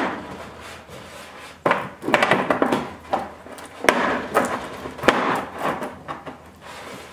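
PVC 90-degree elbow fittings being pushed and worked into the holes of a plastic 5-gallon bucket: plastic rubbing and scraping against plastic in a few spells, with a couple of sharp knocks.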